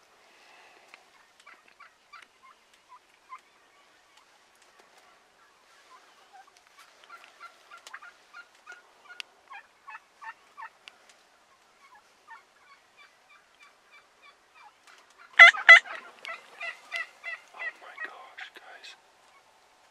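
Wild turkeys calling: scattered short calls through the first half, then a loud rapid series of calls starting about fifteen seconds in and running for a few seconds.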